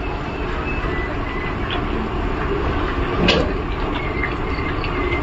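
Sliced onions frying in coconut oil in a large uruli over a gas flame: a steady sizzle with a few sharp pops, the loudest about three seconds in.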